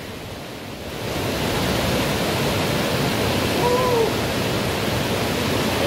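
Steady rushing of a waterfall cascading into a rocky mountain pool, swelling about a second in and then holding level.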